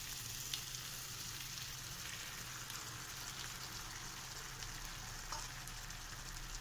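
Masala-coated chicken pieces frying in a non-stick pan with a steady, soft sizzle as cashew paste is poured over them.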